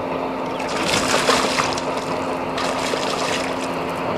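Water splashing and sloshing at the surface beside a boat as a hooked striped bass is brought up to the landing net, with two livelier splashy stretches about one and two and a half seconds in. A steady low hum runs underneath.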